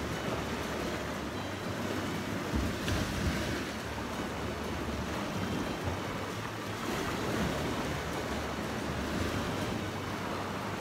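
Sea waves washing against a rocky shore, with wind buffeting the microphone in a low, gusty rumble.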